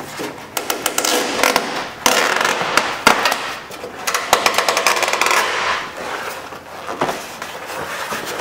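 Plastic door moisture shield being peeled off the door frame and crumpled, an irregular run of rustling and crackling with many sharp clicks.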